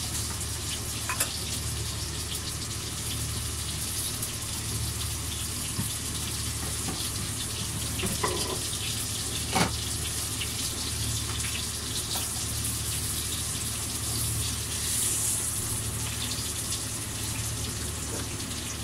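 Chicken schnitzel frying in hot oil: a steady sizzle over a low, even hum, with a few light clicks.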